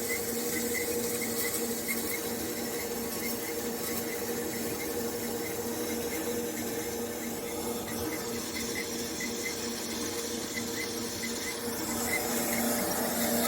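A machine running with a steady hum and a rhythmic high squeak, about three squeaks a second.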